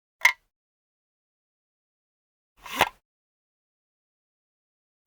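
Projector mechanism sounds: a sharp click about a quarter second in, then a short mechanical clack about two and a half seconds later, with dead silence between.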